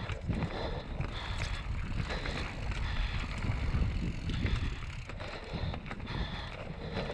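Mountain bike descending a dirt singletrack: tyres rolling and crunching over dirt and roots, with the bike rattling over bumps and wind buffeting the microphone.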